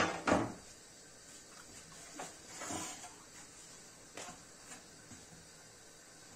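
An aluminium baking tray is set down on a stone countertop, two knocks about a quarter second apart. Then comes soft rustling and a few light taps as a thin sheet of raw yufka pastry is lifted and laid into the oiled tray.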